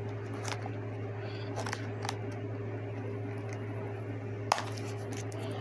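Scattered light clicks and taps of hands handling the packaging, with one sharper click about four and a half seconds in, over a steady low hum.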